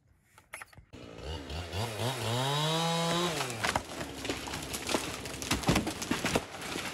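Chainsaw starting about a second in and revving up to full throttle, then dropping back as it cuts into a leaning cedar's trunk to release the felling cuts. Sharp cracks come over the saw in the last few seconds as the loaded trunk gives way.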